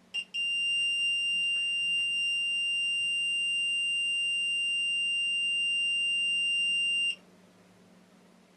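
Continuity tester beeping: a short blip, then one steady high-pitched tone for about seven seconds that cuts off suddenly. The tone sounds while the burglar alarm door contact's reed switch is held closed by its magnet and stops when the magnet is drawn far enough away for the switch to open.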